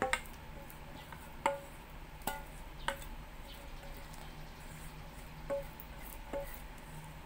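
About six light metallic clinks, each ringing briefly, as a saucepan is tipped against a stainless steel mixing bowl to pour out syrup, over a faint steady low hum.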